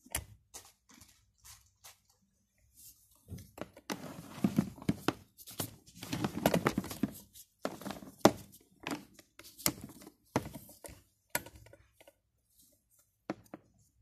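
Handling noise: a plastic hair dryer and its cord being moved about against a cardboard box, with scattered knocks and clicks and a busier stretch of rustling and thuds about four to seven seconds in.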